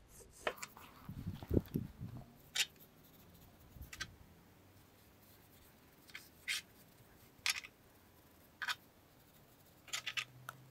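Brush strokes against the metal trailer frame: short, scratchy brushing sounds a second or two apart, with a quick cluster of them near the end.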